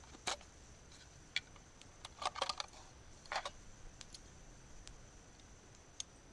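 Sharp clicks and short rattles of a compact camping gas stove being handled: a small plastic case opened and the stove's metal arms unfolded by hand. The clicks come singly and in two quick clusters, about two and three and a half seconds in.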